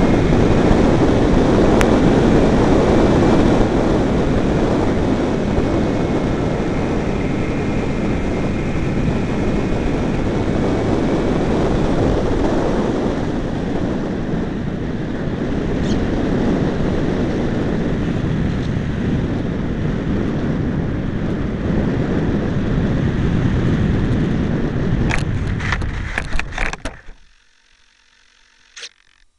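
Wind buffeting the microphone as a steady, rumbling rush, with the faint whine of the Multiplex Blizzard model plane's electric motor in the first third. A few sharp clicks come near the end, and then the sound drops away to near quiet.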